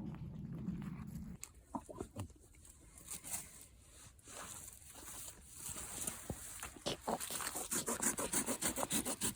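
Hand saw cutting wood with quick back-and-forth strokes, about four a second, starting about seven seconds in. Before that there is a low rumble for the first second or so, then quiet with a few knocks.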